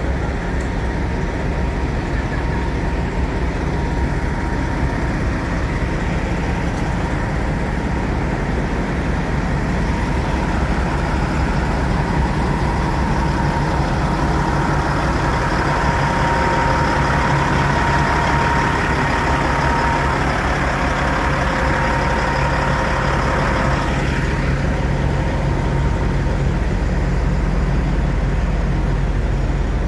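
Diesel semi-truck engine idling: a steady, even low rumble.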